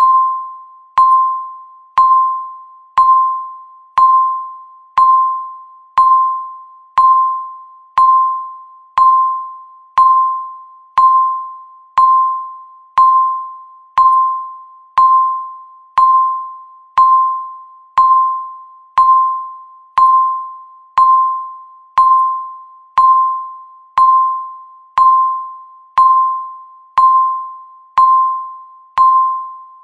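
Countdown timer beeping once a second: a single mid-pitched electronic tone that starts sharply and fades away before the next.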